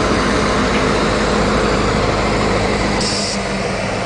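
EMD GP38 diesel-electric locomotive's two-stroke V16 engine running steadily as the unit rolls past and away along the yard track. A brief hiss sounds about three seconds in.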